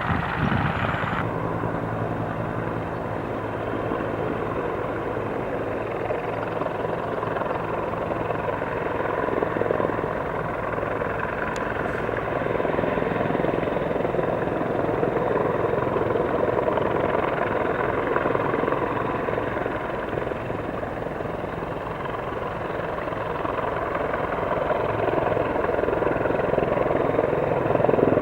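Transport helicopter's rotor and turbines running steadily in flight, a continuous low thrum that grows louder near the end.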